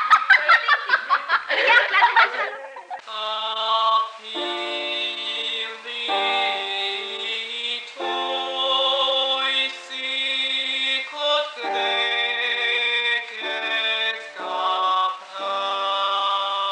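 Voices laughing and calling out for the first couple of seconds. Then music of held chords, each sustained without fading and changing every second or so.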